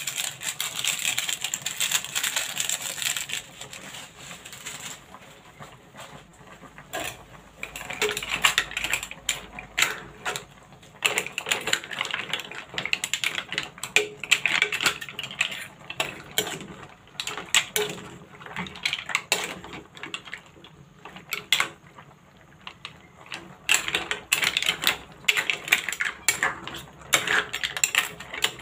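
A metal ladle stirring and scooping green mussels in a pot, the shells clattering and clinking against each other and the pan in quick, irregular knocks. A hiss fills the first few seconds.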